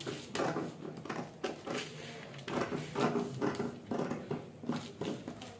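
Scissors cutting through brown pattern paper: a run of crisp snips, about two to three a second, as the blades work along a drawn pattern line.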